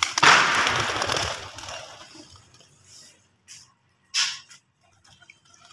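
Water poured out of a vessel in one rush, splashing loudly and fading away over about two seconds, then a short splash about four seconds in.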